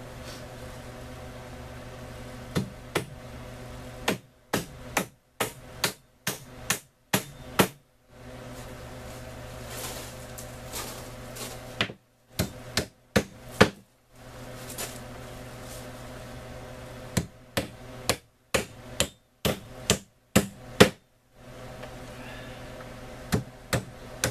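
Claw hammer driving nails into wooden framing: sharp strikes come in several runs of quick blows, with pauses between them. A steady hum sits underneath.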